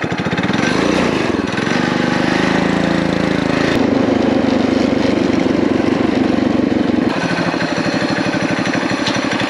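Coleman BT200X mini bike's HiSun 196cc single-cylinder engine running under throttle on a ride, its note rising over the first second or two, holding high, then dropping lower about seven seconds in as the bike slows. The Mikuni VM22 clone carburetor's needle has been set richer to cure a bog at wider throttle, and the engine is pulling much better.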